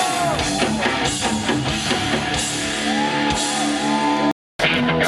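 Rock band playing with electric guitar and drum kit, without vocals. The sound cuts out completely for a moment about four seconds in, then comes back.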